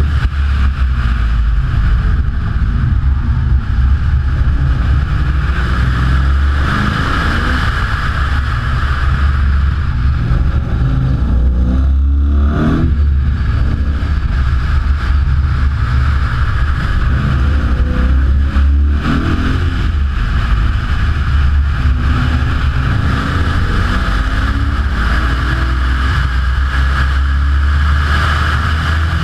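Sprint car's engine driven hard on a circuit, heard from a bonnet-mounted camera. It pulls up through the revs several times, with short breaks about twelve and nineteen seconds in.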